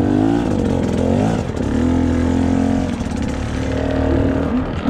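Enduro dirt bike engine at low trail speed, the throttle blipped so the pitch rises and falls several times in the first second or so, then held fairly steady.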